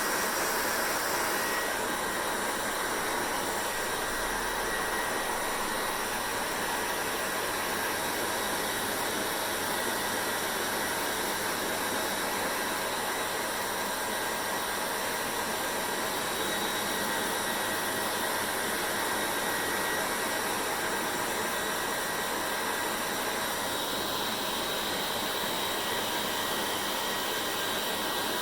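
Hair dryer running steadily: an even blowing hiss with a faint steady whine, unchanging throughout.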